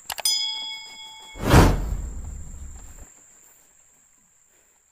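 Subscribe-button animation sound effects: a quick double mouse click, a short ringing chime, then a loud rush of noise about a second and a half in that fades away.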